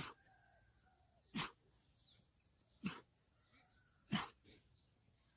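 Sharp, forceful breaths puffed out in an even rhythm, four times about every second and a half, one with each repetition of Hindu push-ups (dand). Faint bird chirps sound between them.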